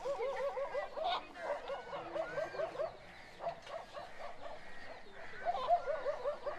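Animal calls: rapid runs of short, wavering notes, several a second, in two bursts with a quieter stretch between.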